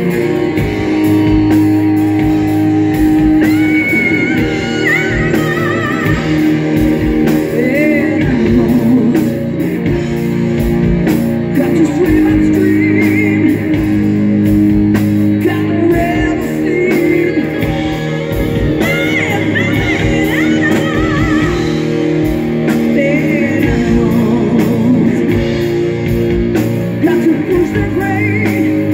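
Live rock band playing: a woman singing over electric guitars and drums.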